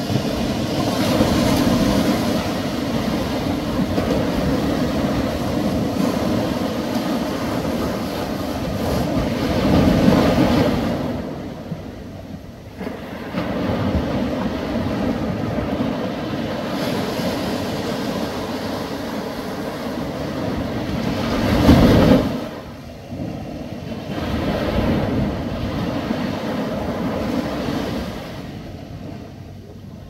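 Small ocean waves breaking and washing in, a continuous rush of surf that swells and eases with each set, surging most strongly about ten seconds in and again a little after twenty seconds.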